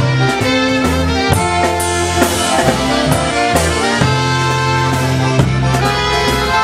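Live dance band playing a waltz: saxophone and trumpet carry the melody over a bass line and drum kit.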